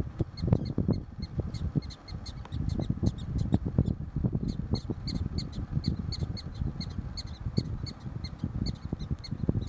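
Wind buffeting the microphone in uneven gusts, with a fast, regular series of short, high chirping calls from an animal repeating about three to four times a second.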